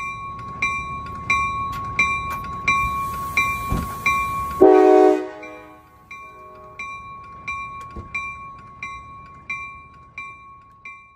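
A train horn sounds one short chord about four and a half seconds in, over a bell ringing steadily about one and a half strikes a second. A low train rumble runs under the first half and stops as the horn begins.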